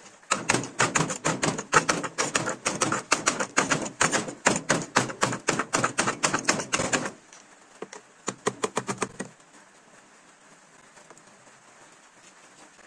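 Homemade spring-loaded plunger chopper built from a pickle jar, pumped rapidly by hand to chop green chillies: a fast run of clacks at about five a second, the blades striking down through the chillies onto the wooden board. The clacking stops about seven seconds in, a short second run follows a second later, and then it goes quiet.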